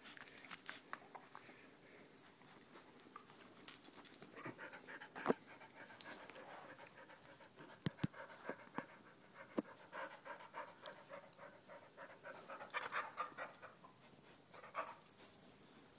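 A dog panting while it plays with a toy, with scattered small clicks and a few short, sharp high-pitched noises, the loudest about half a second and nearly four seconds in.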